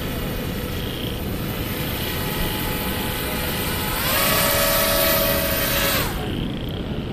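Four-motor radio-controlled air boat's electric motors and propellers whining steadily. The whine rises slightly in pitch and grows much louder about four seconds in as the boat comes close, then drops away about two seconds later.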